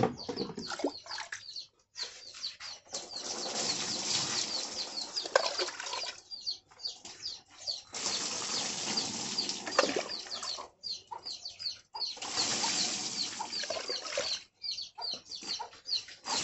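Water poured by the mugful over a cow's back, splashing in three bursts of a few seconds each, with short pauses between scoops.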